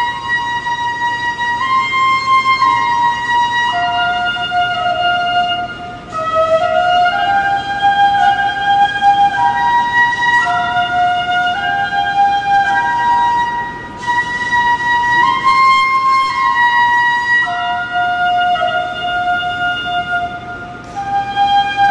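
Solo flute playing a slow melody of long held notes that step up and down, in long phrases with brief breaths between them.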